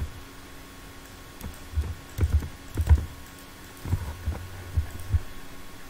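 Typing on a computer keyboard and clicking a mouse: about nine dull, irregular taps over a faint steady hum.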